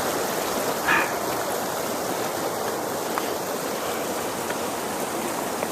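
Rushing water of the Pedernales River pouring over the falls: a steady, dense wash of sound. A brief, higher sound stands out about a second in.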